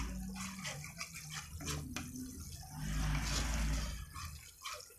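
Metal spatula stirring and scraping coconut milk curds frying in an aluminium pan, with a few sharp taps against the pan. A hissing sizzle swells about three seconds in.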